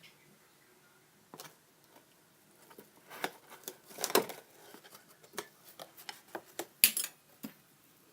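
Paper being handled: a run of irregular rustles and sharp clicks, loudest about four and seven seconds in.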